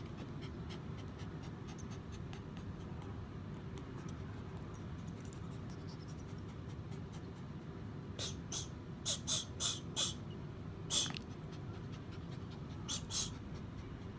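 Small dog breathing and sniffing close by: a run of short, sharp sniffs starting about eight seconds in, then two more near the end, over a steady low background hum.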